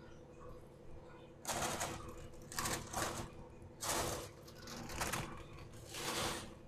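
Aluminium foil being peeled off a covered kadhai and crumpled, in about five crinkling rustles starting a second and a half in.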